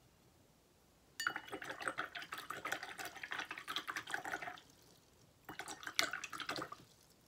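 Paintbrush swished and rattled inside a glass jar of rinse water, the brush clinking rapidly against the glass as the water sloshes. It comes in two bouts, about three and a half seconds and then just over a second.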